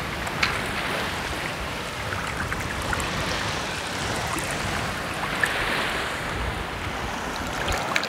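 Shallow seawater splashing and sloshing around a person's legs as they wade, heard as a steady rush of water.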